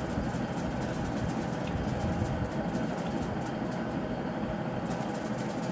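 Steady low rumbling background noise with a faint hiss, like a machine running, with no distinct events.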